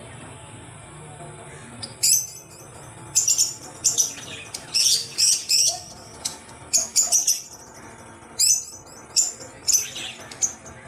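Rubber squeeze-toy horse squeezed by hand, its squeaker giving a string of short, high squeaks, singly and in quick runs, starting about two seconds in.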